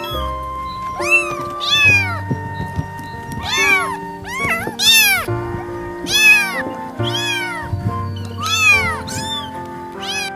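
Kittens meowing: about ten short, high meows that rise and then fall in pitch, some in quick pairs, over background music with long held notes.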